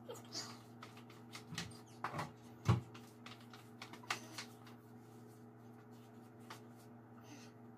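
Light clicks and knocks of kitchen items being handled, with one louder knock about two and a half seconds in, over a steady low hum; after about four and a half seconds only the hum remains.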